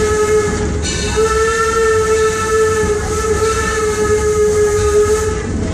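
Steam locomotive whistle blowing one steady note: a blast that breaks off about a second in, then a long blast that stops shortly before the end, over the low rumble of the train running.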